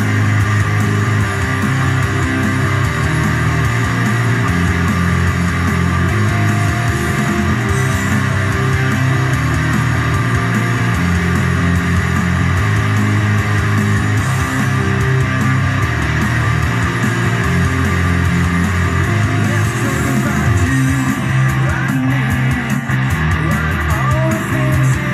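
Background music: guitar-driven heavy rock with bass guitar, loud and continuous.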